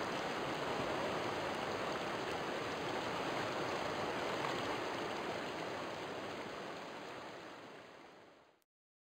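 River water flowing, a steady rushing sound that fades away near the end.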